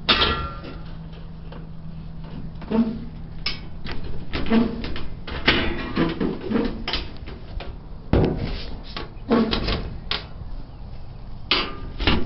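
Sheet-metal dryer top being fitted into its hinge slots and lowered onto the cabinet: a run of irregular metal clunks and rattles, the loudest at the start and near the end.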